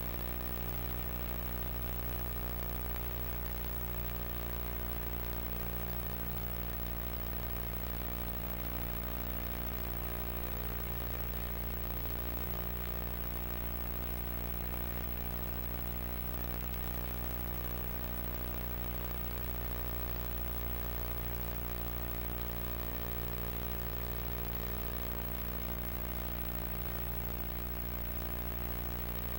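Steady low electrical hum with hiss on an otherwise silent soundtrack, unchanging throughout.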